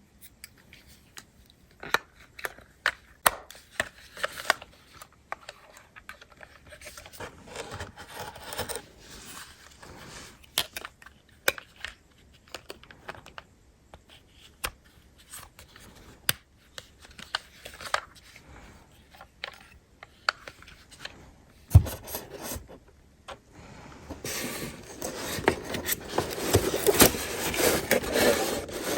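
Handling noises of a toy RC car and its packaging: scattered sharp clicks, scrapes and rubbing. In the last five seconds a denser, louder continuous rustling scrape takes over.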